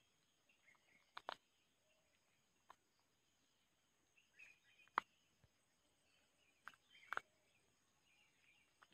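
White tree mushrooms being snapped and torn off a mango tree's bark by hand: a few short, sharp snaps, the loudest about halfway through, over faint bird chirping.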